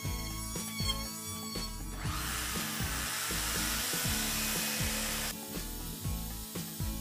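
Background music with a steady beat. From about two seconds in, a power tool runs with a dense, rushing noise for about three seconds and cuts off suddenly.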